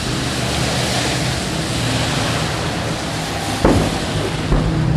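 A warship's gun firing a saluting shot: one sharp boom about three and a half seconds in, with a weaker report just under a second later, over a steady rushing noise.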